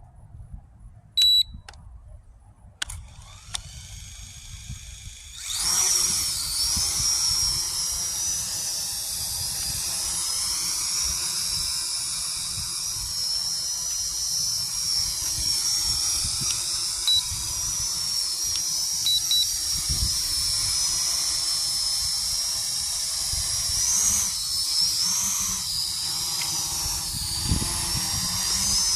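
Small TSRC toy quadcopter drone beeping once, then its motors spinning up about five seconds in to a steady high-pitched whine that wavers up and down in pitch.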